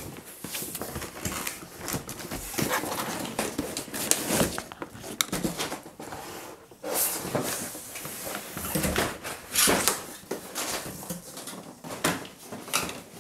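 Corrugated cardboard packing being pulled and dragged out of a box: irregular scraping, rubbing and creaking of cardboard against cardboard, with sharp knocks as pieces are pulled free and set down.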